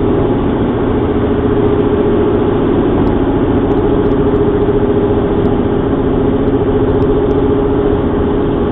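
Steady road and engine noise inside a car travelling at freeway speed, with a constant low hum.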